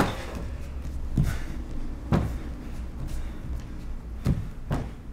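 Dancers' bare feet and bodies thudding on a stage dance floor, about five irregular thumps spread across the few seconds, over a low steady room hum.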